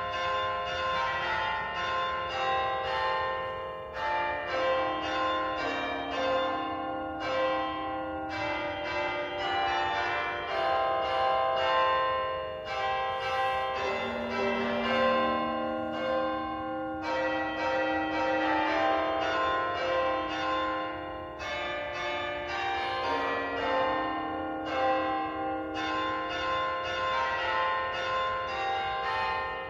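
Church bells ringing a rapid peal: many bells struck in quick succession, their tones overlapping. The peal breaks off and starts again every four seconds or so.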